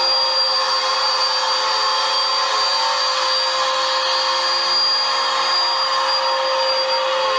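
Vacuum cleaner motor running steadily: an even rush of air with a steady low hum and a high whine on top.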